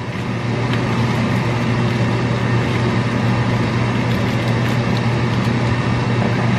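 Electric fan running steadily, a loud even whoosh with a constant low hum, switched on to clear kitchen smoke. A plastic bag of baby carrots crinkles faintly as it is handled.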